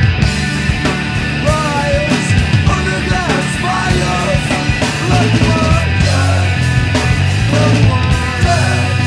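Emo/punk rock band recording: electric guitars, bass and drums playing loud and without a break.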